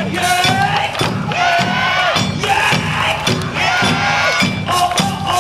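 Awa Odori festival music, with taiko drums beating a driving steady rhythm under sharp percussion strikes. Over it, performers give repeated rhythmic shouted calls.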